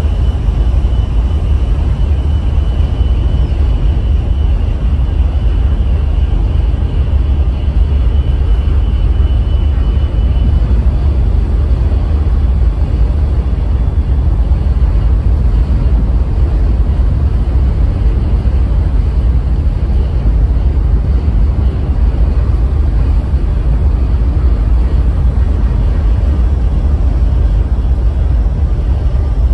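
Steady loud low rumble of a car ferry under way, heard from its open stern deck as it churns out of port. A faint high whine runs through the first third and fades out.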